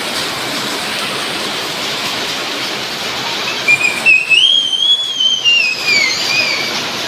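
Heavy rain pouring steadily. Midway a single high whistled tone comes in, rises and then falls over about two and a half seconds.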